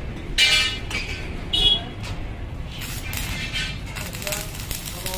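Stick welding arc crackling and sizzling as a steel tower-bolt latch is welded onto a sheet-steel gate frame, heard in the latter half. Two short, loud pitched sounds stand out about half a second and a second and a half in.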